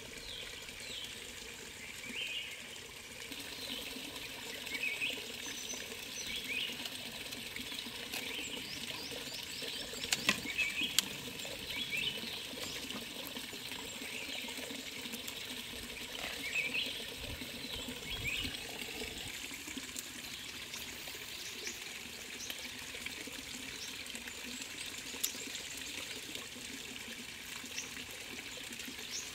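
Small stream trickling steadily, with birds chirping in short repeated calls. A few sharp cracks about ten seconds in, as a cooked stone crab's shell is broken by hand.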